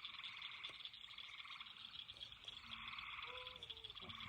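Faint, steady night chorus of calling frogs, a dense rapid trilling.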